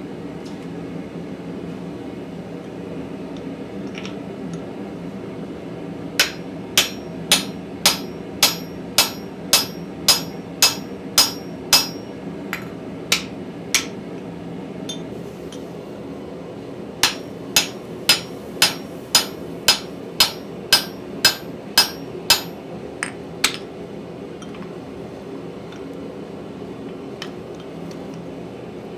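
Hand hammer blows forging steel on an anvil, with a bright ring on each strike. They come in two runs of about two blows a second, with a short pause and a couple of single strikes between them.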